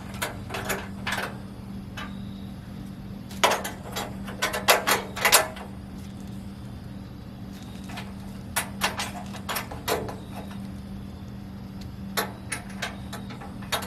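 Scattered knocks and clanks as the grill's side piece is worked onto its mounting screws on the frame, coming in three short clusters over a steady low hum.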